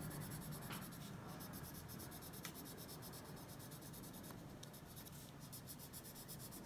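Colored pencil faintly scratching on frosted shrink plastic in quick shading strokes.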